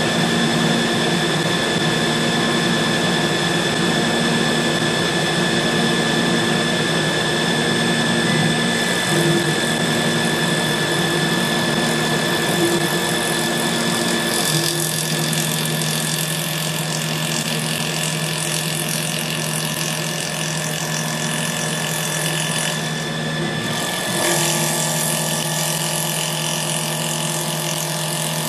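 EagleTec EA-TL1530B CNC wood lathe running external turning: a steady motor hum and whine, with the hiss of the cutter taking wood off a spinning pen-container blank. The hum changes pitch about halfway through and dips briefly near the end before picking up again.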